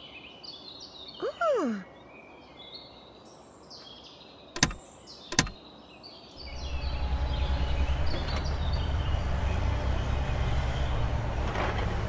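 Cartoon soundtrack effects over a bed of birdsong: a short falling tone, then two sharp clicks less than a second apart. About six seconds in, a steady low motor rumble starts and carries on.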